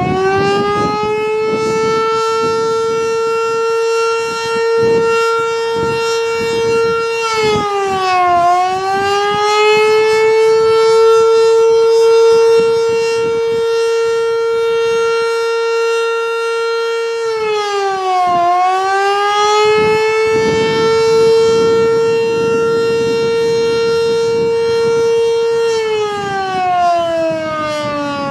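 Federal Signal Model 2 single-tone electromechanical fire siren sounding a short attack cycle. A steady wail dips briefly in pitch twice, about ten seconds apart, each time winding straight back up, then starts winding down in a falling glide near the end. Wind buffets the microphone underneath.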